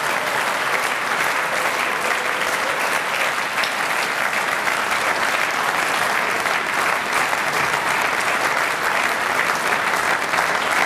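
Audience of several hundred people applauding steadily, a dense even clapping that holds at one level.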